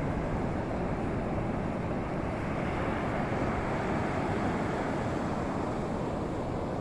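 Ocean surf with wind buffeting the microphone: a steady, even rushing noise with a low rumble.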